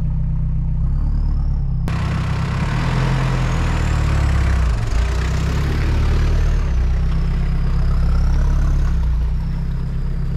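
Motor vehicle's engine running with a steady low drone, joined about two seconds in by a steady hiss of noise.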